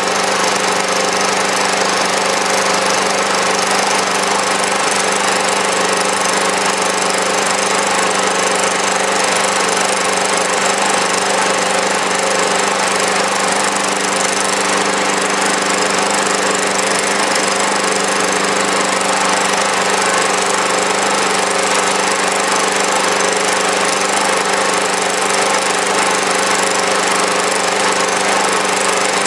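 Small engine running steadily at a set speed in standard trim, on its ordinary fuel without HHO, under a constant electrical load of about 350 watts.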